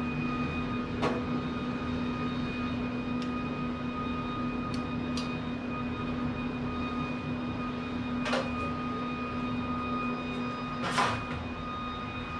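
Steady hum of the Pit Boss Pro Series vertical pellet smoker's fan running, with a few knocks as the racks and door are handled, the loudest near the end as the door is shut.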